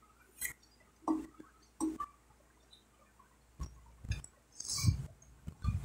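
Close-up eating sounds: fingers picking rice and manioc flour off a clear plate with a few light clinks, and wet mouth clicks of chewing. In the second half come several soft low knocks against the plate or table.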